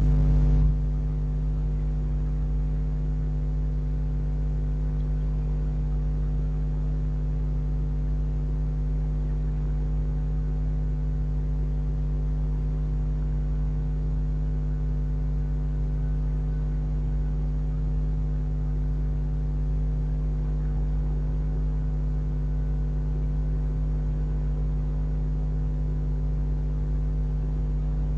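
Steady electrical hum from the infrared night camera's own electronics: a low drone with several fixed tones above it, unchanging throughout. It starts suddenly, with a slightly louder first half-second.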